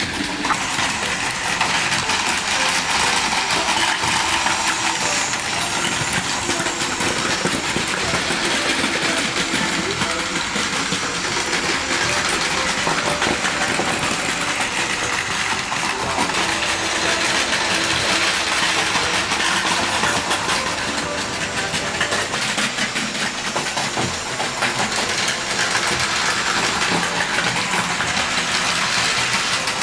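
Battery-powered Plarail Advance toy trains running on plastic track: a steady whir of small electric motors with the rattle of wheels on the track, growing louder and softer as they pass.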